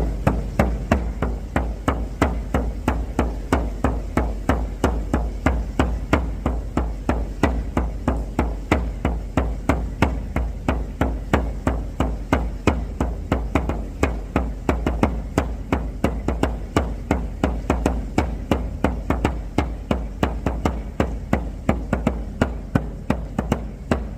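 Hand-made shamanic drum beaten with a single beater in a steady, even rhythm of about three strokes a second, each stroke a deep, loud boom.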